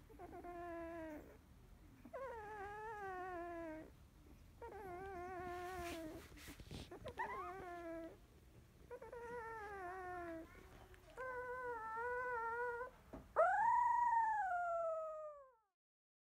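Newborn Labrador retriever puppy whining: a series of about seven drawn-out, wavering cries, each a second or two long. The last one is the loudest, rising and then falling away.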